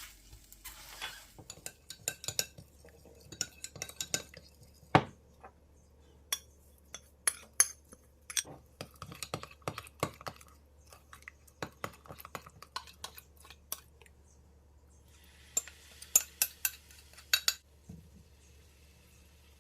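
Utensils clinking and tapping against dishes: a scattered series of short, sharp clicks, with a dense flurry near the end.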